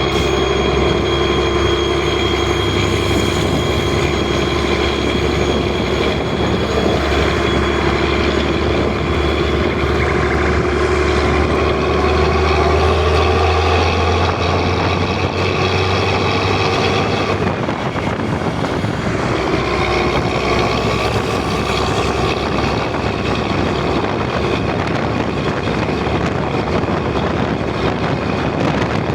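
Volvo B10M bus's straight-six diesel engine running steadily, with a deep hum under several steady tones. About two-thirds of the way through, the low hum drops away suddenly and the pitch of the engine shifts.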